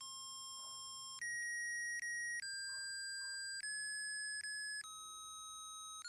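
Simple electronic beeping melody, one plain buzzy note at a time, stepping from note to note about once a second, like a ringtone or musical chip tune.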